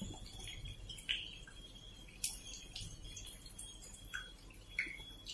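Buckwheat-batter pakoras frying in oil in an iron kadhai: faint crackling with scattered small pops, and a few light clinks of a steel ladle against the pan.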